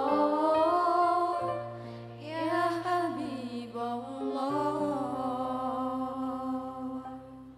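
A girl singing an Arabic devotional song into a microphone in long, drawn-out notes over a karaoke backing track of sustained chords. The voice and the backing fall away near the end.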